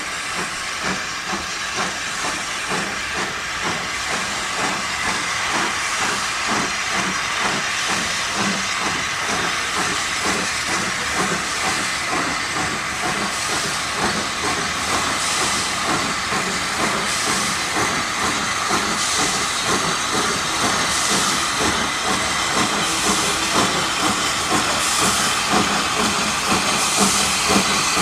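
USATC S160 2-8-0 steam locomotive working slowly with its cylinder drain cocks open: a steady hiss of steam with regular pulses. It grows louder towards the end as the engine comes closer.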